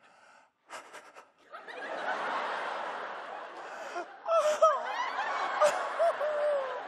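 Theatre audience laughing, rising to a steady laugh about a second and a half in. From about four seconds in, a man's high, wavering wails of mock fright ride over the laughter.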